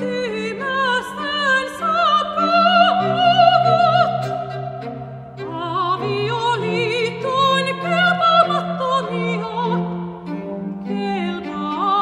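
A woman singing Finnish words in a classical church-music style with wide vibrato, holding long notes over sustained low accompaniment.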